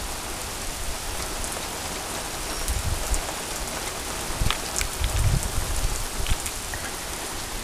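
Heavy rain pouring down onto pavement in a steady hiss, with a few brief low rumbles between about three and six and a half seconds in and scattered sharp drip ticks.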